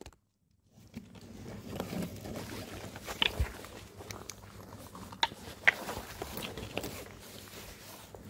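Quiet crunching and rustling of footsteps on gravel and dry leaves, uneven, with a few sharper clicks, starting after about a second of dead silence.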